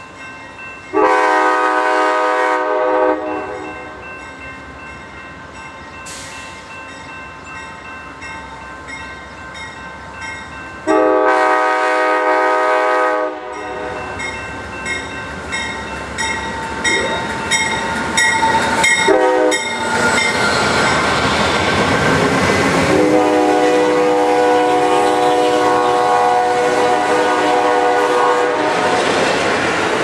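Nathan Airchime K5LA five-chime horn on an Amtrak GE P42DC diesel locomotive, sounding a chord in three blasts. The first comes about a second in and the second about eleven seconds in, each roughly two seconds long. The third, about six seconds long, comes near the end as the locomotive and its cars rush past with loud rumble and wheel clatter.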